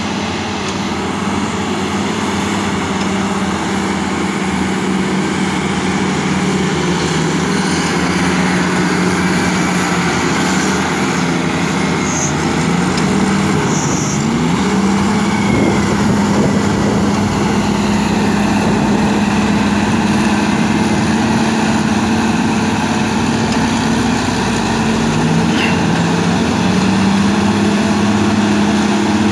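Cat 627G scrapers working in tandem, their diesel engines running hard in a steady loud drone. About halfway through, the engine note drops and then climbs back.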